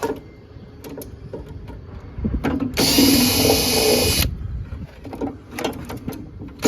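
A power drill running in short bursts to undo the bolts on a gas combi boiler: a few clicks and knocks of handling, then the drill runs steadily for about a second and a half around three seconds in, and starts again near the end.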